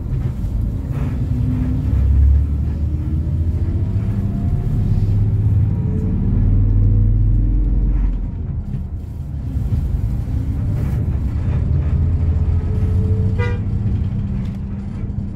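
Engine and road rumble from inside a moving road vehicle in city traffic, the engine pitch rising as it picks up speed a few seconds in. A short car horn toot sounds near the end.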